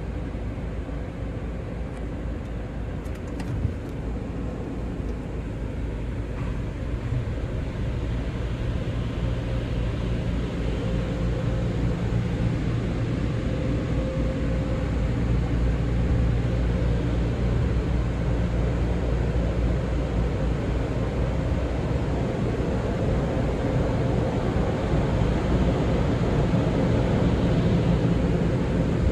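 Steady low mechanical hum of automatic car wash machinery, heard from inside a car as it rolls slowly into the wash bay. The hum grows louder about a third of the way through.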